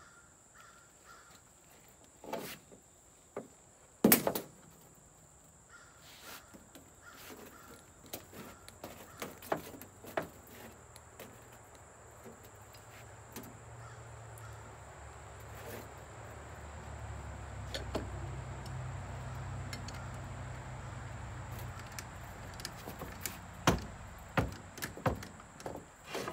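Scattered metal clinks and knocks of a hand-threaded hydraulic fitting and tools being handled, the loudest a sharp knock about four seconds in. A low steady rumble swells through the middle and fades before the end, with more knocks near the end.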